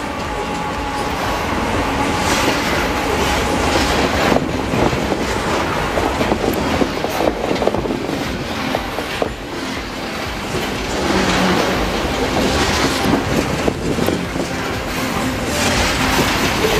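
Loaded coal train rolling past close by: the steel wheels of the coal hopper cars clack over the rail joints in a steady run of clicks, over the rumble of the train and its diesel locomotives.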